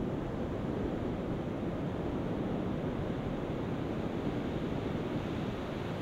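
Ocean surf breaking and washing: a steady rush of whitewater noise with no pauses.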